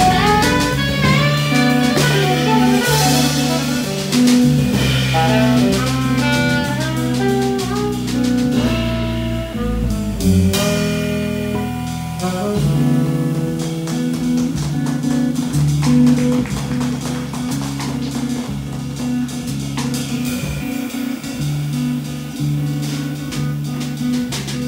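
Live jazz: an electric guitar played through effect pedals with a drum kit and saxophone, over low held notes with cymbal strokes throughout. The music changes texture about halfway through.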